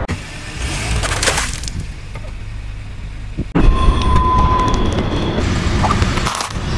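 Car engine running close to the ground beside the tyre, with a brief crackle about a second in. About halfway through the sound changes suddenly to a louder steady rumble.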